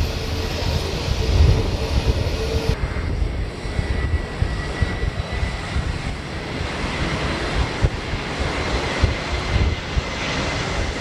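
Aircraft engines giving a steady low rumble, with a thin whine above it.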